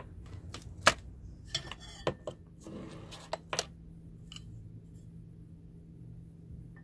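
Sharp clicks and knocks of hard plastic and metal parts being handled as a desk microphone stand's rod and base are fitted together. There are a handful of clicks with some rustling between them, the loudest about a second in, and they die down after about four seconds.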